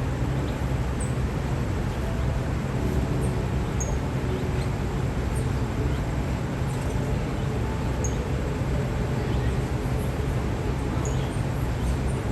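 Tiny yellow bird's high, thin chirps, short single chips every second or two, over a steady low hum of background noise.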